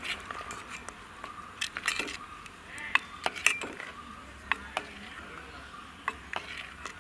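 A steel ladle stirring curd into a thin curry in a stainless steel pot, clinking and scraping irregularly against the pot's sides and bottom, with the sharpest clinks about three seconds in.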